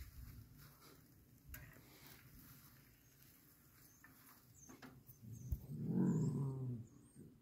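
Dog giving one low, drawn-out growl, about a second and a half long, starting about five seconds in. Before it there are only faint clicks and rustling.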